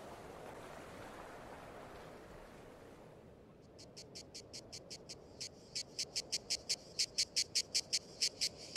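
Insect chirping in a fast, even series of short high pips, about five a second, fading in a little before the middle and growing steadily louder. Underneath is a soft rushing hiss that dies away over the first few seconds.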